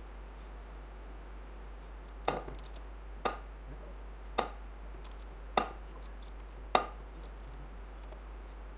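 Hydraulic bottle jack in a homemade press being pumped by hand: five sharp clicks about a second apart.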